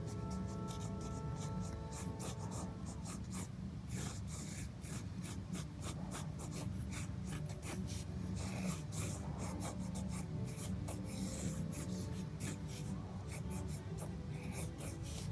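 Ink drawing pen scratching on sketchbook paper in many short, quick strokes. Soft background music fades out in the first few seconds.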